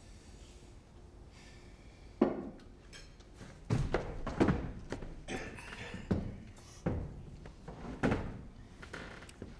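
A series of about eight dull knocks and thuds, starting about two seconds in: chairs and tableware knocking against a wooden table as people sit down to a meal.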